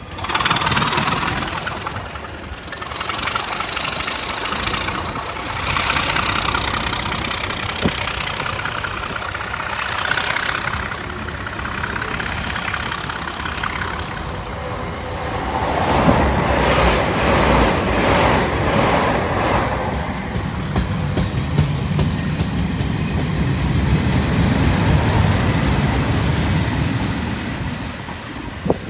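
Locomotive-hauled train passing on the line at moderate level: wheels clattering over the rail joints, loudest and most rapid in the middle. Near the end comes the low rumble of a Class 37's English Electric V12 diesel engine as the locomotive approaches.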